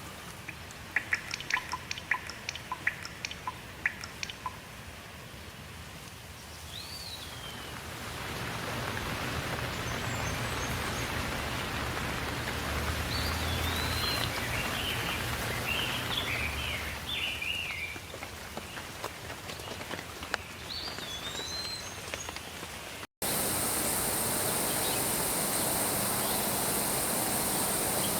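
Rain falling, first as scattered drips, then as a steady patter that grows louder, with birds calling now and then. Near the end it cuts abruptly to a louder, steadier rain with a high, steady hiss on top.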